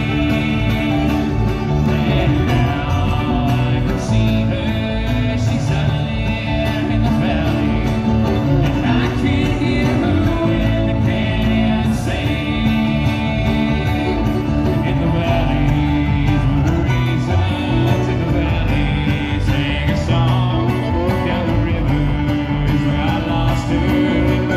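Bluegrass band playing live: banjo picking over an upright bass line, with singing.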